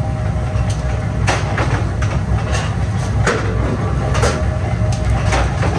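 Flywheel-driven mechanical power press running with a steady low rumble, and sharp metal clanks about once a second as steel cultivator-blade pieces are struck in the die.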